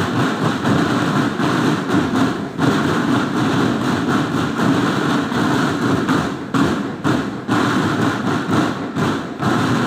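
Marching drum band playing many drums together in a steady, dense drumbeat, with sharper strokes standing out over the second half.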